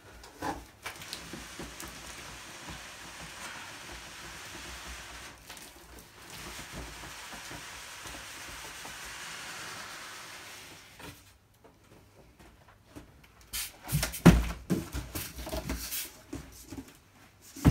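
A cardboard box of tool-chest parts being tipped and emptied: a long steady rustling scrape of packaging for about ten seconds, then, after a short lull, a run of knocks and thumps as parts and packing come out, the loudest about two-thirds of the way through and another right at the end.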